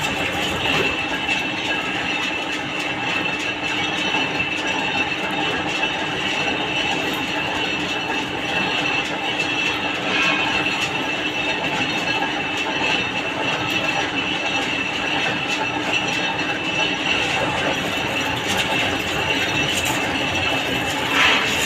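Metal lathe running and cutting a steel trolley axle: a steady mechanical clatter with a constant high-pitched tone.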